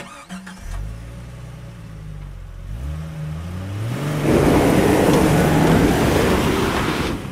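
A car engine catching and revving up in several rising steps, then a loud rushing noise at high revs for the last three seconds, used as the sound of a logo intro.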